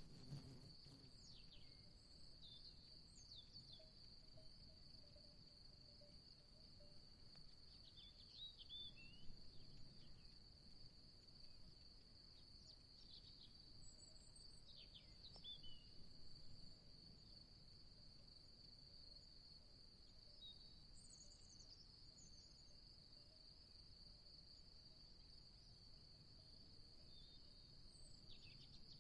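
Faint outdoor ambience: a steady high-pitched insect trill, like crickets, with short bird chirps scattered through, a few at a time.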